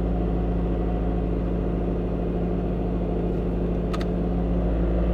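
Toyota Echo's 1.5-litre four-cylinder engine idling steadily while still cold, soon after its throttle body and idle air control valve were cleaned. A single click about four seconds in.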